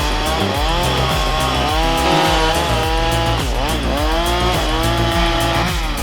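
Chainsaw engine at high revs cutting wood, its pitch dipping under load and climbing back several times, about a second in, near the middle and near the end. Background music plays underneath.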